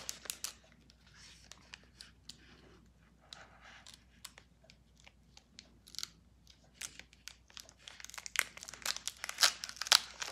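A foil Pokémon Shining Fates booster pack wrapper being torn open by hand. It gives small crinkles and tearing crackles, sparse and faint at first, then denser and louder from about eight seconds in.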